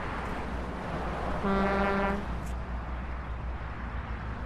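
Steady street traffic noise with a single vehicle horn honk, one held note of under a second, about a third of the way in.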